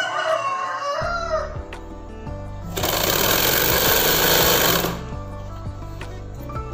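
Straight-stitch sewing machine running in one burst of about two seconds in the middle, stitching a folded sleeve hem. A rooster crows near the start, and background music plays throughout.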